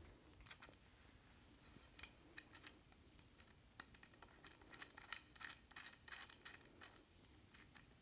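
Faint, irregular small clicks and scratches of a double-ended threaded screw being twisted by hand into the end of a curtain rod, thickest in the middle seconds.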